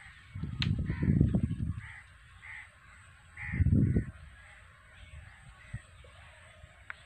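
A crow cawing over and over, a string of short calls about every half second to second. Two loud bursts of low rumble on the microphone come about a second in and again past the middle, louder than the calls.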